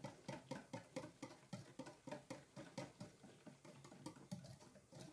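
Wire hand whisk beating a thin liquid batter in a stainless steel bowl: faint, quick, even strokes, about four to five a second, with the wires clicking against the metal.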